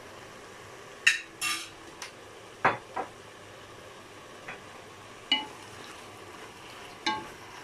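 Chicken and vegetable stir-fry sizzling faintly in a deep stone-coated pot, while a wooden spatula stirs and knocks against the pot about eight times at irregular intervals, some knocks ringing briefly.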